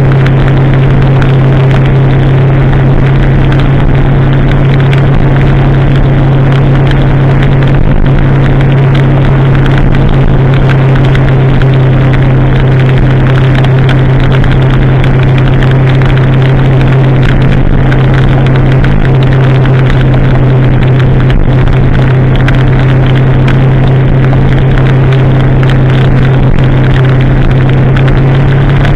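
2016 Kawasaki ZX-10R's inline-four engine through a de-catted custom exhaust, held at a steady cruising speed with one constant drone and no revving.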